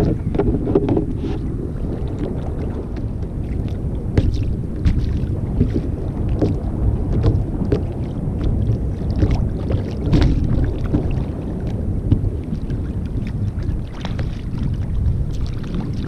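Wind buffeting the microphone of a camera mounted on a sit-on-top kayak, with water lapping against the hull and scattered short knocks and clicks.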